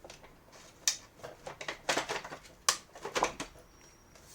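Plastic clicks and knocks as a vacuum cleaner's top housing cover is fitted and pressed shut, four or five sharp clicks spread over a few seconds.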